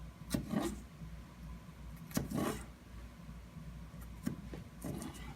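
Kitchen knife chopping garlic slowly on a cutting board: a few separate, irregular knife taps.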